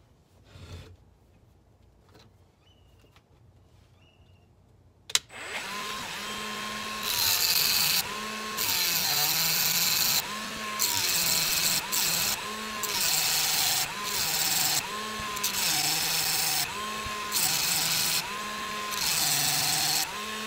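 Rotary tool with a cut-off wheel switched on with a click about five seconds in, then cutting into the pressed-on brass extruder gear on a stepper motor's shaft. The motor's whine dips in pitch each time the wheel bites, with a harsh metal-grinding hiss coming and going over repeated passes.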